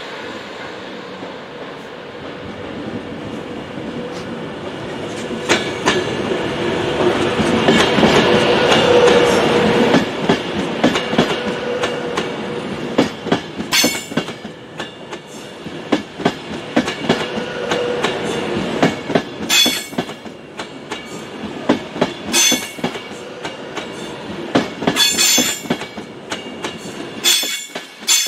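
A train running through the station: a rumble that builds to its loudest about eight to ten seconds in, with wheels clicking over rail joints and points. In the second half it turns into a run of sharp metallic clacks every two to three seconds.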